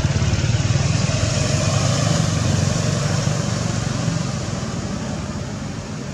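A motor vehicle's engine running with a steady low rumble, growing fainter over the last couple of seconds.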